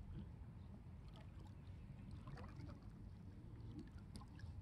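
Faint lakeshore ambience: a low wind rumble on the microphone with light water lapping at the shallows.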